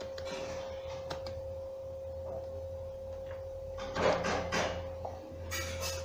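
Room tone: a steady tone over a low hum, with a click about a second in and a few brief noises about four seconds in and again near the end.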